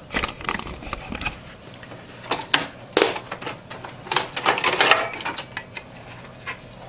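Plastic CPU heatsink cover being unclipped and handled inside a small-form-factor desktop case: a run of irregular sharp clicks and light knocks, with a denser stretch of scraping and rattling about four to five seconds in.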